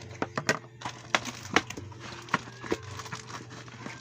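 Irregular sharp clicks and taps, about a dozen, from a container and slime supplies being handled and set down on a table, over a steady low hum.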